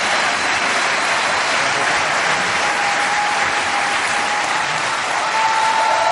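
Large indoor audience applauding steadily, a dense continuous clapping.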